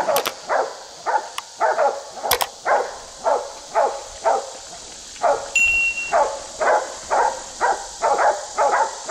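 Hunting dogs barking steadily at a wild hog they have cornered and are holding at bay, about three barks a second with a short break midway.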